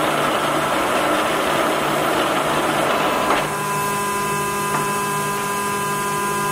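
Timemaster gap bed engine lathe running under power at about 512 RPM, its headstock gearing giving a steady whirring hum. A bit past three seconds in there is a click and the gear noise drops away, leaving a steadier hum, as the lathe is brought down for the next speed.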